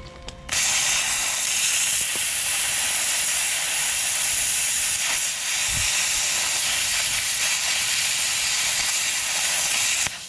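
Plasma cutter arc hissing steadily as it cuts through a cutting-edge bolt on a bulldozer blade. It starts about half a second in and stops abruptly near the end.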